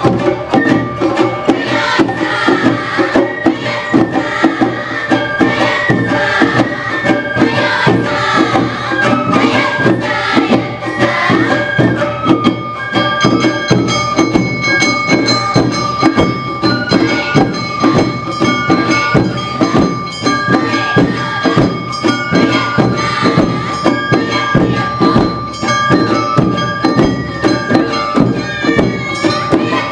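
Awa Odori dance music from a live narimono band: bamboo flutes holding a high melody over a fast, dense beat of drums and a clanging bell.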